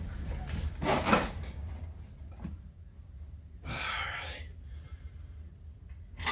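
Handling noises as a snowmobile skid is wrestled up into its new track: a clunk about a second in, a short noisy rush near four seconds and a sharp knock at the end, over a steady low hum.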